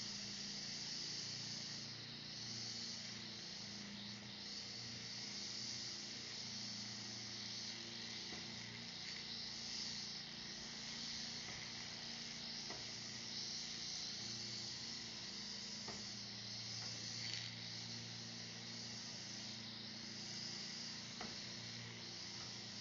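Battery-powered EGO 56-volt lawn mower running: a steady airy hiss over a faint low motor hum.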